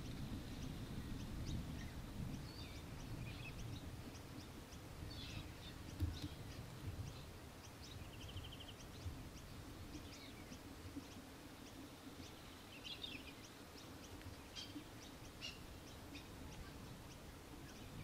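Faint scattered chirps and short calls of small birds, with a brief rapid trill about eight seconds in, over a low wind rumble.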